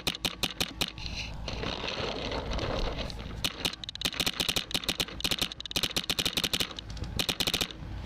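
Paintball marker firing rapid strings of shots, about ten a second, in several bursts, with a lull between about one and three seconds in.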